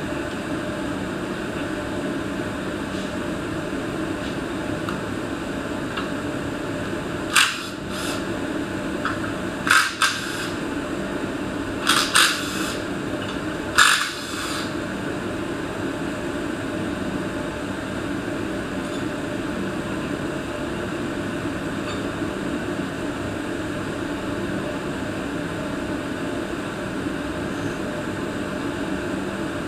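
A few sharp metallic clinks and rattles of hand tools on an engine's parts, as brackets are taken off a Honda Civic engine on a stand. They come in a short cluster over about seven seconds, against a steady background hum.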